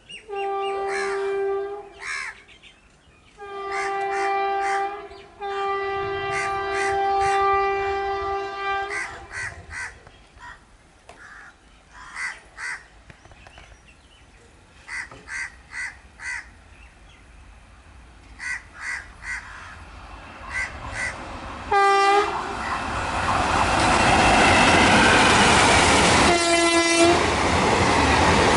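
WAP1 electric locomotive's horn sounding three times as the train approaches, the third blast the longest. Short bird calls repeat in the lull. Then the train runs past at speed with a rising rush and wheel clatter, and two more short horn blasts sound.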